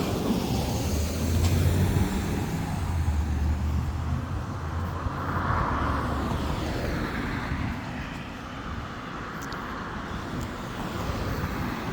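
Road traffic passing close by: a vehicle's low engine rumble that eases off after about seven seconds, with a swell of tyre hiss about halfway through as it goes by.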